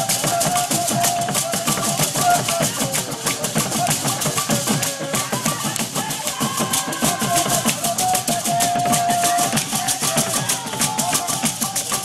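Music with a busy, steady drum rhythm under a melody line.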